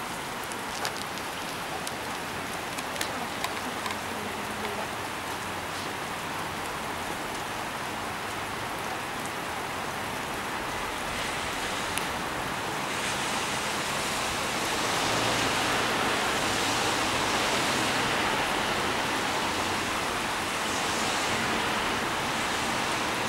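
Steady rain falling, an even hiss, with a few sharp drop taps in the first seconds. The rain grows louder a little past halfway through.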